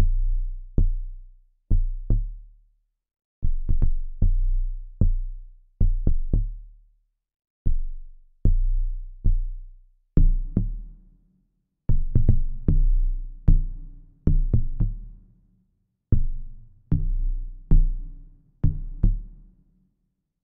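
A synthesized amapiano bass line playing back by itself: deep notes with a sharp click at the start of each, dying away, in an uneven, syncopated rhythm at changing pitches. From about ten seconds in, a higher synth layer sounds with the bass notes.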